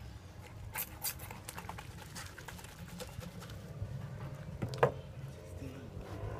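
A large knife cutting through a big red fish on a wooden board: soft wet scraping and slicing with a few sharp knocks of the blade, the loudest about five seconds in, over a steady low hum.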